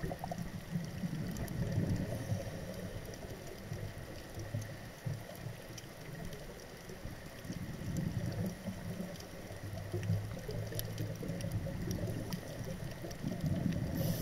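Underwater, a scuba diver's regulator breathing: exhaled bubbles rumble and gurgle in swells every few seconds. Scattered faint clicks sit over it.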